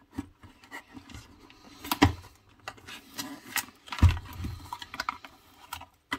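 Long cardboard kit box being opened by hand: the end flaps click and scrape as they are pulled open, with a sharp knock about two seconds in and a louder, dull thump about four seconds in.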